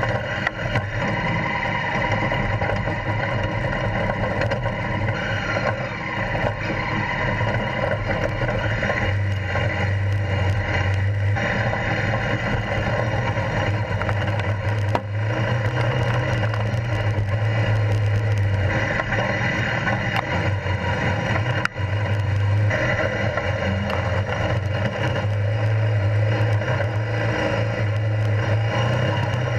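Honda Africa Twin CRF1000L's parallel-twin engine running as the bike is ridden, its note shifting up and down with the throttle.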